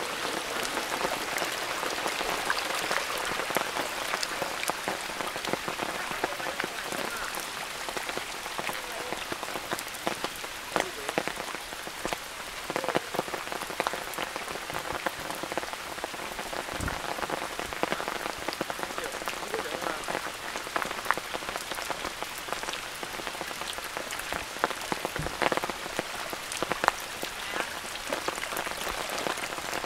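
Steady rain falling, with many individual drops ticking close by, and two brief soft low thumps partway through.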